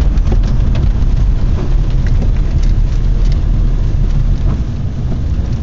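Road and engine noise inside a moving car's cabin: a steady low rumble with a hiss over it.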